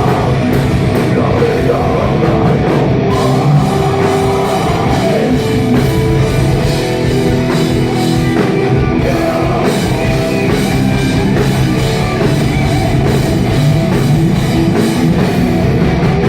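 A live metal band playing loudly, with drum kit and distorted guitars, through a phone microphone that cannot handle the volume, so the sound is harsh and overloaded.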